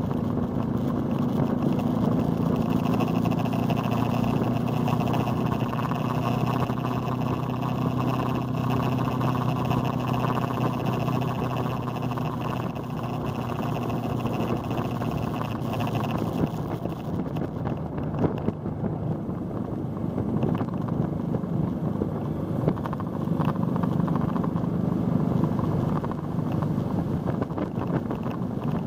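Motorcycle engine running at a steady cruising pitch, heard from on board with wind rushing over the microphone. The engine's drone fades under the wind and road noise in the middle and comes back near the end.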